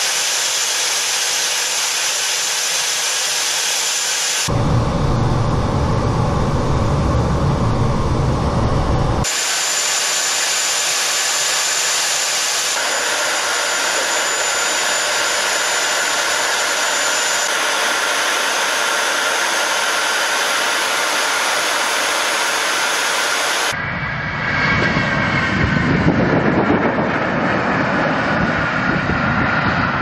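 Tu-160 bomber jet noise, first a steady hissing roar inside the cockpit in flight with a thin high whistle, changing abruptly at each cut. In the last few seconds the bomber's engines are heard outside on the airfield, a lower, fuller roar with a whine that falls slightly in pitch.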